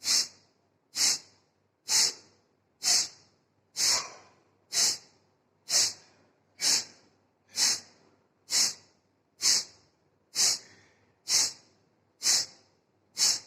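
Kapalbhati breathing: short, forceful exhalations through the nose, about one a second, each a sharp hiss driven by a snap of the belly inward, with quiet between strokes.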